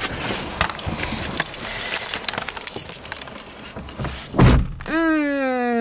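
Clattering and rustling of handling inside a car, with keys jingling, then a heavy thump about four and a half seconds in. Near the end a voice holds one long note that slowly slides down in pitch.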